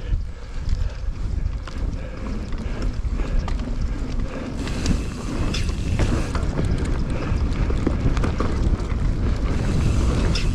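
Wind rushing over the microphone of a mountain bike speeding down a dirt jumps trail, with a few sharp knocks from the bike along the way.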